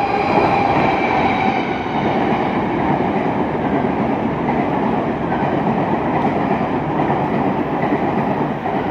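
A nine-car Chu-Kuang Express passenger train running through the station without stopping, a steady loud rumble of steel wheels on the rails. A faint steady tone in the first couple of seconds fades as the locomotive moves past.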